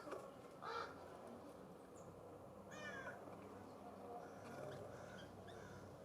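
Harsh, rasping California scrub-jay calls, with one at the very start and another about a second in. Around three seconds in comes a short run of quick falling chirps, with faint chips from small birds in between.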